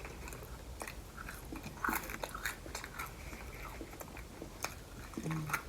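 Close-miked chewing and biting of McDonald's fast food, with scattered wet mouth clicks and small crunches. A brief hummed "mm" comes near the end.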